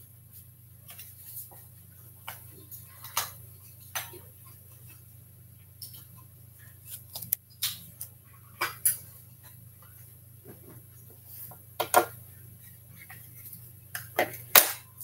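A hatching chick pecking at its shell from inside a pipped egg: irregular sharp taps, from a second or so apart to several in quick succession, over a low steady hum.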